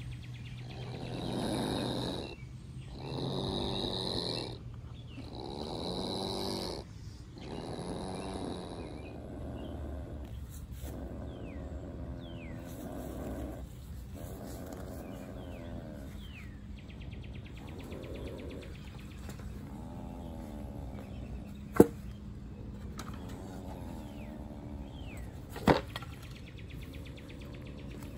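A young opossum in a wire live trap makes four raspy, snore-like hisses in the first few seconds. Softer sounds follow, then two sharp clicks near the end.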